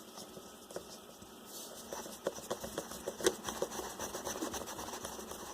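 Irregular small clicks and taps of parts and tools being handled, growing busier about a second and a half in, with one sharper tick a little past the middle.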